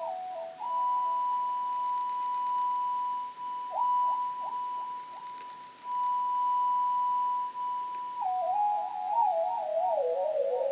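Electronic music: a single pure, whistle-like tone held steady at a high pitch, broken by a few quick downward flicks about four seconds in, then stepping and wavering down in pitch near the end.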